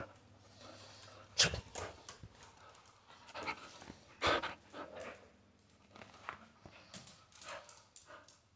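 A dog making a few short, sharp sounds, the loudest about a second and a half and again about four seconds in.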